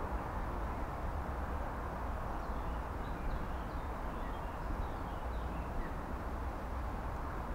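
Steady low rumble and hiss of outdoor background noise, with faint, short bird chirps scattered through the middle few seconds.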